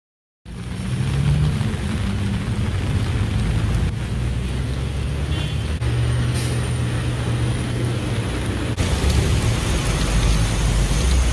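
Vehicles driving through a flooded street in heavy rain: a low engine rumble and the wash of tyres through standing water over a steady hiss of rain, starting about half a second in.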